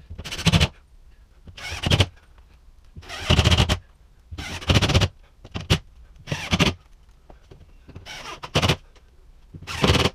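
Cordless drill driving screws into a sheet of drywall: seven short bursts of the motor, each under a second, a second or so apart.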